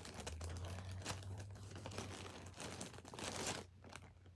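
A small plastic toy bag crinkling and rustling as it is handled up close, in irregular bursts with light clicks.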